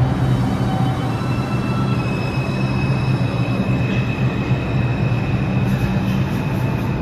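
NYC subway 5 train pulling out of the station, a steady low rumble with a high whine that sets in about two seconds in.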